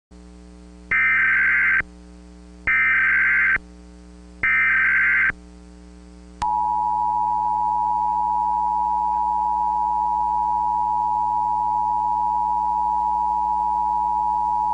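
Emergency Alert System signal for a national emergency: three short data bursts of the SAME header, then the steady two-tone attention signal starting about six seconds in and held to the end, over a low steady hum.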